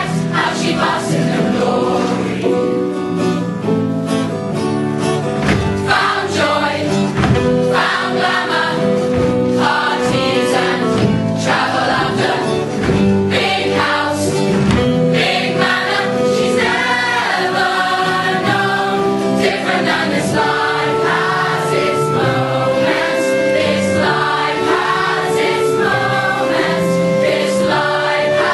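A large mixed chorus of men and women singing a musical-theatre number together, performed live, with several long held notes in the second half.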